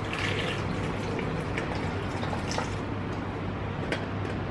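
Hot water poured from a stainless-steel electric kettle into a plastic blender jug, splashing most strongly in the first half-second. Light clicks and taps of the jug follow, over a steady low hum.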